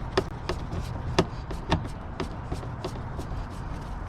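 Light irregular clicks and taps of a Phillips screwdriver working a small screw out of a car's interior door handle trim, over a low steady hum.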